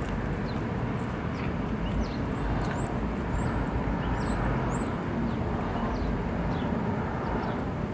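Steady traffic noise, with a few short, high, falling bird chirps from about two to five seconds in.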